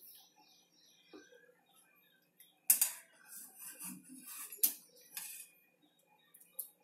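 A plastic colander of boiled corn kernels handled and shaken to drain off the water: two sharp knocks nearly two seconds apart, with clattering and rustling of the kernels between them.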